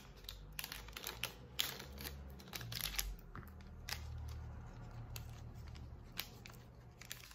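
A small sachet being torn open and handled with the fingers: faint crinkling and tearing of the packet, with a scatter of small sharp clicks and crackles.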